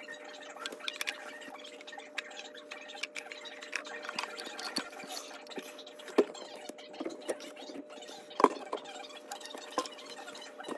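Small clicks and knocks of plastic fittings being handled and set against a garbage disposal's plastic housing, with a couple of sharper knocks in the second half, over a faint steady hum.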